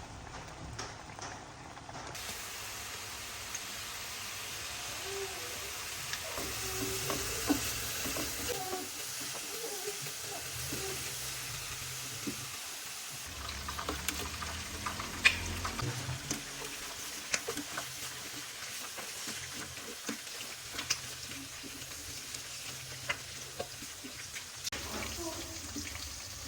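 Food frying in hot oil in a pan: a steady sizzle that sets in about two seconds in, with scattered sharp clicks of a utensil against the pan.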